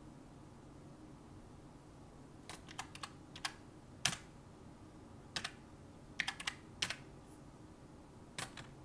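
Keys of a desk calculator being pressed in irregular runs of sharp clicks, starting a couple of seconds in, as figures are added up.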